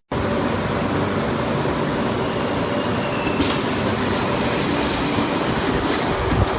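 Multi-head combination drilling machine for window and door profiles running with a steady loud noise. A high squeal rises over it from about two seconds in and fades about five seconds in, and a few sharp clicks come near the end.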